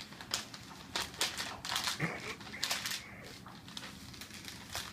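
A large sheet of paper rustling and crinkling as it is folded over, in a string of short crisp bursts that are loudest in the first three seconds.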